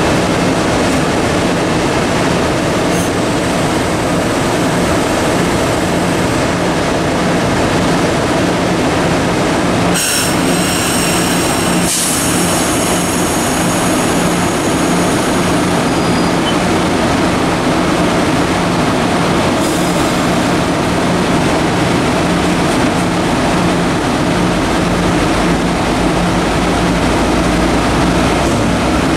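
A fast-moving loaded rock freight train passing on the rails: a loud, steady rolling noise of its cars' wheels, with a brief high wheel squeal about ten seconds in.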